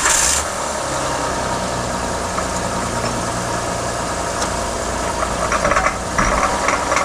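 2008 Honda Odyssey's V6 engine, just started, running with a loud grinding, knocking rattle from the driveline. The mechanic puts it down to a chewed-up bearing at the axle, which leaves the wheel undriven.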